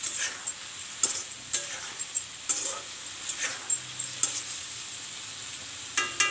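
Prawns sizzling in mustard oil in an iron kadai, fried until their water cooks off, while a metal spatula scrapes and knocks against the pan about twice a second. The stirring stops about four and a half seconds in, leaving the steady sizzle, and a ringing clank of the spatula against the pan comes near the end.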